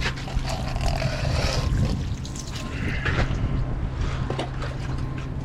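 A steady low motor hum with irregular clicks and scraping or hissing noises over it.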